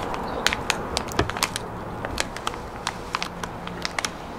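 Plastic and foil candy wrapper crinkling and crackling as hands tear open a small pouch on the package and handle it: irregular sharp clicks, thinning out in the second half.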